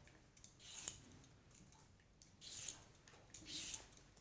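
Vegetable peeler scraping strips of skin off a cucumber: about three faint strokes roughly a second apart.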